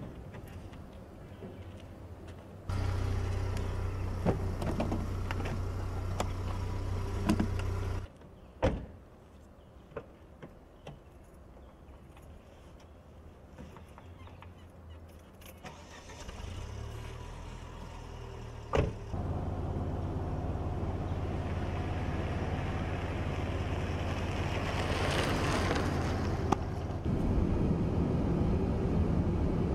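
Small saloon car with its engine running steadily, a few sharp door clunks, then the car driving, with the engine note growing stronger. Near the end it is heard from inside the cabin.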